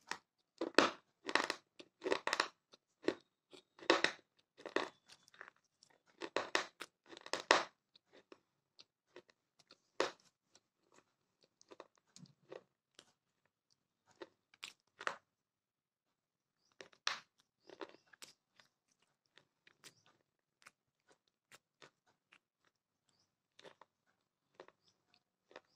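Pieces of a baked terracotta clay cup being chewed: loud, dense crunching for the first eight seconds or so, thinning to sparse, softer crunches for the rest.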